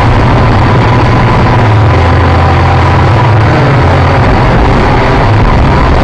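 Quadcopter's electric motors and propellers heard from the onboard camera: a steady whine over a loud, heavy low rumble.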